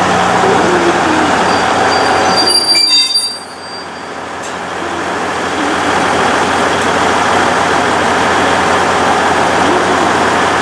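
Diesel measuring train running on the rails with a steady mechanical rumble. About three seconds in comes a brief high-pitched squeal, and then the sound drops away and builds back up.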